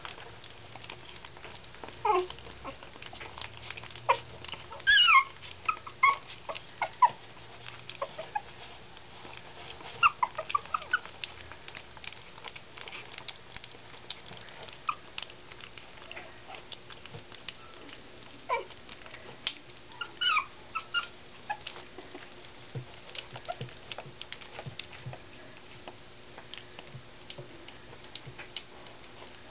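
Shih Tzu puppies eating soft food from a dish: small wet chewing and lapping clicks, with several short high squeaks and whimpers, mostly in the first two-thirds.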